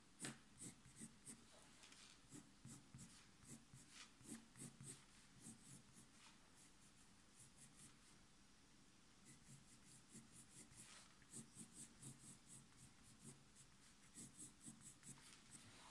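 Faint scratching of a colored pencil on drawing paper, laid down in short quick strokes at about two to three a second, with a pause of a few seconds midway.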